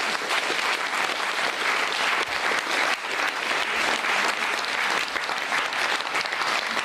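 Studio audience applauding, a dense, even clapping of many hands.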